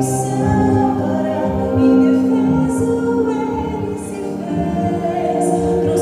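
Gospel vocal group singing in harmony, holding long chords that shift every second or two.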